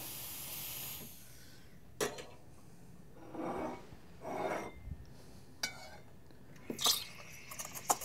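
A faint steam hiss dies away in the first second, then quiet handling noises: a few knocks, clinks and short rubbing sounds as a stainless steel milk pitcher is picked up and set under the espresso machine's steam wand, with a cluster of small clinks near the end.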